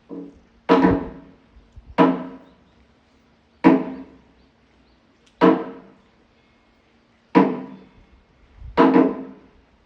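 A hollow wooden temple percussion instrument struck six times at a slow, uneven pace, each knock sharp and followed by a short ringing decay.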